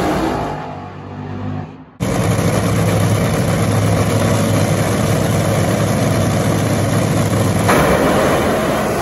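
Nitro-burning drag car engines. First a pass fading away down the track, then abruptly loud, steady engine running at the starting line, turning louder and harsher near the end.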